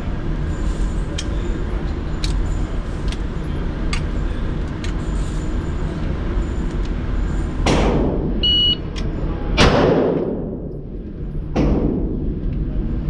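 A shot timer beeps once, and about a second later a pistol shot cracks out and echoes through the indoor range; this is the loudest sound. Two other gunshots, about two seconds before the beep and two seconds after the shot, sound over a steady background hum.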